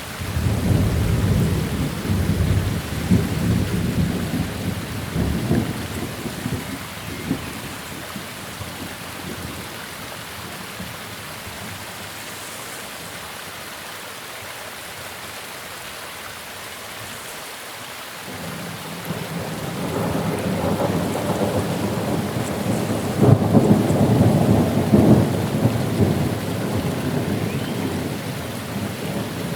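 Steady rain with two long rolls of thunder. The first breaks suddenly and fades over several seconds. The second builds up later, swells, and dies away near the end.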